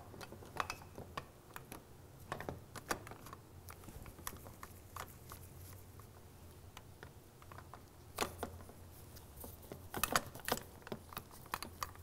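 Faint, scattered metallic clicks and taps as a fork spring compressor's pins are worked into the holes of a Suzuki GSX-R1000 fork's preload spacer. A few louder clusters of clicks come about eight and ten seconds in.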